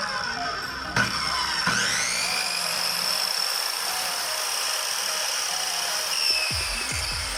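Fujihama electric circular saw switched on about a second in, its motor spinning up to full speed and then running with a steady high whine; the pitch sags slightly near the end.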